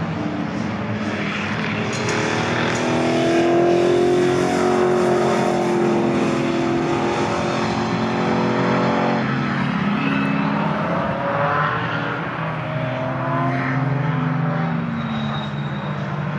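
Historic racing Ford Mustang's V8 engine at speed, passing and pulling away through a bend. The engine note shifts abruptly about nine seconds in, then rises again as it keeps driving on.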